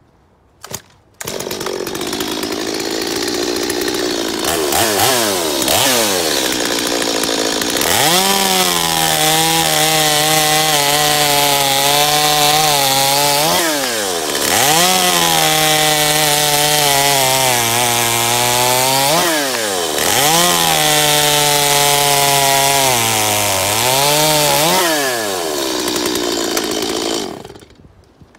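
Stihl two-stroke chainsaw held at full throttle through three long cuts in firewood, the engine's pitch sagging slowly under load in each cut and dipping briefly between them. It revs down and falls quiet near the end.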